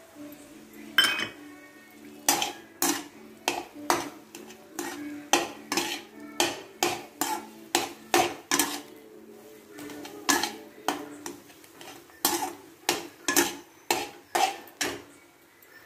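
Slotted steel spatula knocking and scraping against a kadhai while stirring thick wheat-flour halwa, in repeated sharp clanks at about two a second. The halwa is at its final stage, with the last of the ghee being worked in.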